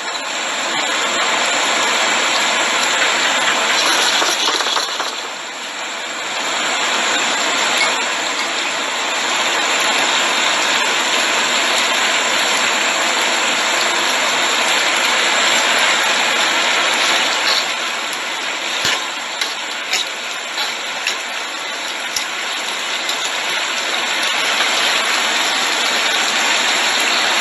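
Three-cup chicken wings sizzling and bubbling hard in a stainless frying pan over a high gas flame as the sauce reduces, with a few light clicks of metal tongs against the pan about two-thirds of the way through.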